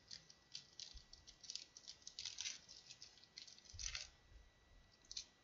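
Faint crinkling and crackling of a Pokémon booster pack's foil wrapper being torn open and handled, with soft knocks about a second in and near four seconds.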